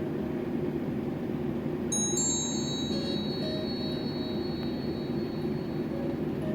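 A Pantech Breeze IV ringtone playing through the phone's speaker: a steady low rumble with faint short tones, and about two seconds in, a high bell-like chime strikes and rings on, slowly fading.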